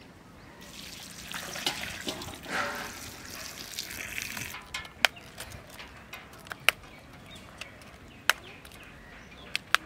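Water poured from a pot into a steel bowl of vegetables for about four seconds, then stopping. The pouring is followed by several sharp knocks as the vegetables are washed by hand in the bowl.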